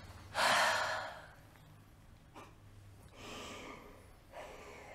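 A woman breathing heavily: one loud exhaled sigh about half a second in, then three softer breaths.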